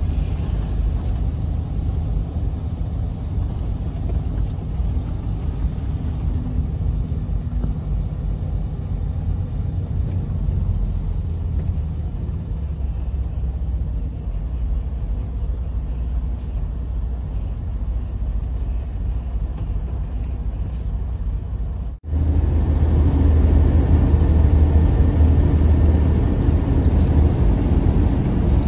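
Semi truck driving on the highway: a steady low rumble of engine and road noise. About 22 seconds in it breaks off for an instant and comes back louder.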